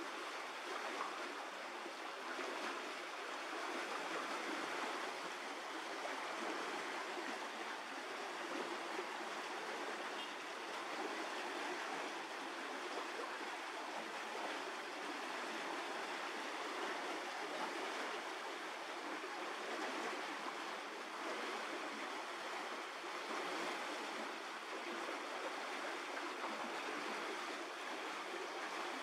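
Steady, even rushing noise like running water, with no distinct events and no change in level.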